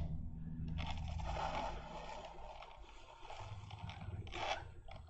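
Faint scraping and rustling of fingers working at a small paper-and-plastic model aircraft, pulling the rigging thread through a hole in an interplane strut, with a short louder scrape about four and a half seconds in.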